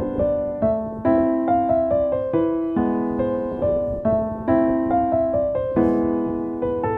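Background piano music, a gentle melody of struck notes that each ring out and fade.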